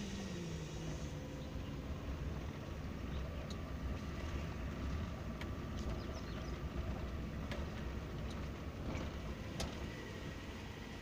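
Maruti Zen hatchback driving on the road, heard from inside the cabin: a steady low rumble of engine and tyres, with a few sharp clicks scattered through.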